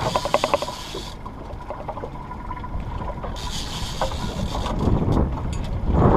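Wind rumbling on the microphone aboard a small boat on open water, growing stronger near the end, with a quick rattle of clicks in the first second.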